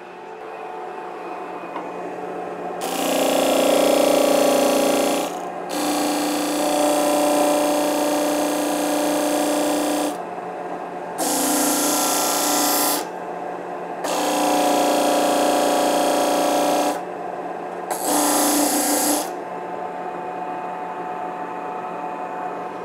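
A 12-inch Central Machinery disc sander running with a steady motor hum while a piece of cypress is pressed against its coarse 40–60 grit disc. The wood goes on five times, each pass a loud rasping grind that stops sharply as the piece is lifted away.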